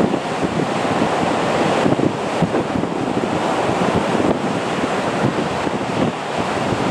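Boeing 737-200's Pratt & Whitney JT8D turbofan engines running as a loud, steady rush of noise while the jet rolls on the runway, with wind buffeting the microphone.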